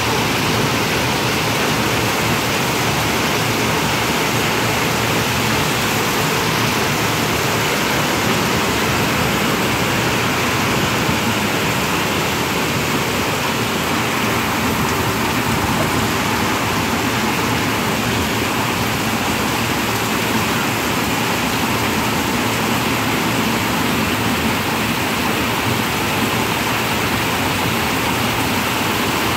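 Heavy rain falling steadily on a tin roof: a dense, even hiss at a constant level.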